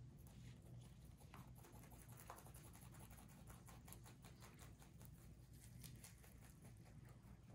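Two rabbits chewing dandelion leaves and stems: faint, quick crunching clicks over a low steady room hum.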